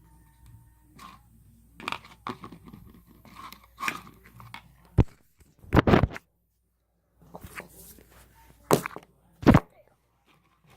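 A mixing utensil stirring a thick shampoo-and-salt slime in a bowl, making irregular clicks and scrapes with a few loud knocks against the bowl in the second half.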